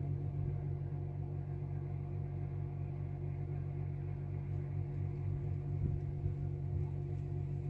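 A motor or engine running with a steady low hum.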